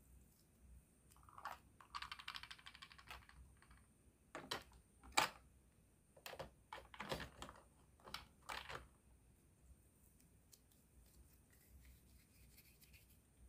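Quiet crackling rustle of play dough being squeezed in the hands, then a string of about seven sharp plastic clicks and clacks as toy kitchen pieces are handled and set down in a plastic dish rack, the loudest about five seconds in.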